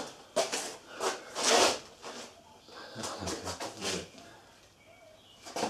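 A string of short rubbing, swishing noises from gloved hands working at the engine: a few in the first two seconds, then more around the middle.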